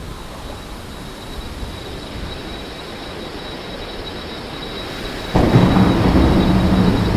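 Thunderstorm: low thunder that slowly builds, then a sudden, much louder crash of thunder a little over five seconds in that keeps rumbling on.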